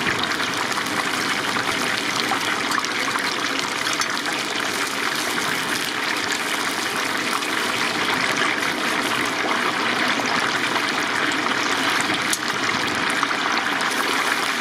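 Chicken deep-frying in a vat of hot oil: a steady, dense sizzle full of fine crackles.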